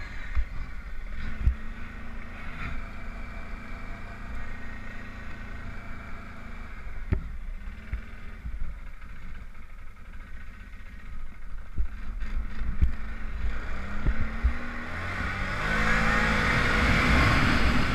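Arctic Cat 1000 XT quad's V-twin engine running at a steady cruise, easing off through the middle, then revving up and getting louder under acceleration near the end.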